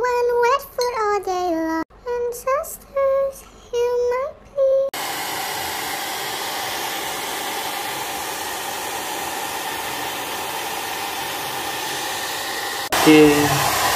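A kitten mews repeatedly in short, pitch-bending calls. After about five seconds this gives way to a handheld hair dryer running steadily, blowing a wet kitten's fur dry after its bath. The dryer cuts off abruptly about a second before the end.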